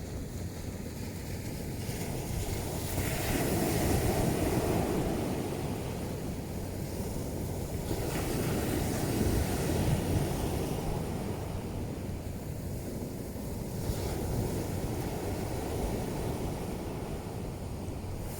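Ocean surf breaking on a pebble beach, rising and falling in surges a few seconds apart, with some wind buffeting the microphone.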